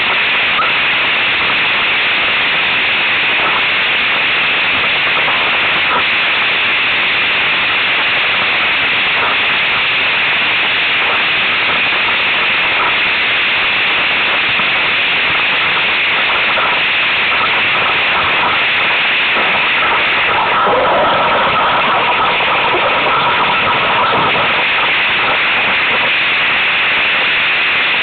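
Rush of wind and spray on a rig-mounted camera as a windsurf board planes at speed: a loud steady hiss with no breaks. A steady whistling tone joins for a few seconds about two-thirds of the way through.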